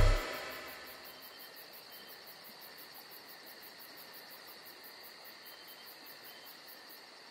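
The tail of music dying away within the first second, then a faint insect chorus: steady high chirping with a fast, even pulse of about four a second and a few short higher chirps.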